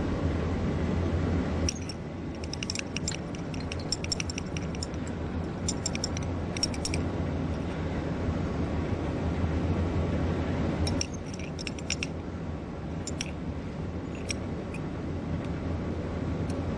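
Steady low hum of a lab fume hood's ventilation, with clusters of light, sharp glassy clicks as a glass test tube is shaken and swirled by a gloved hand.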